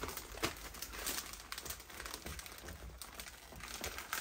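Plastic vacuum-bagging film crinkling irregularly as it is handled and folded into pleats by hand.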